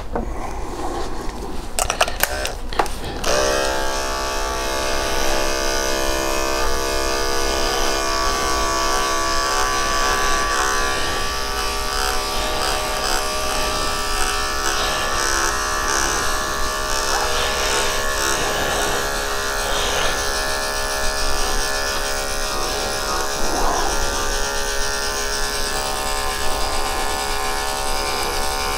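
A few clicks, then electric pet clippers switch on about three seconds in and run with a steady buzzing hum while clipping through a matted coat.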